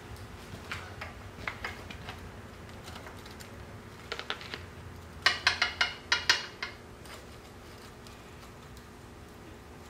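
Steel-on-steel clinks and taps from the pin hardware on a mini excavator's bucket coupler as it is worked by hand. A few scattered clicks come first, then a quick run of about eight sharp, ringing clinks around the middle.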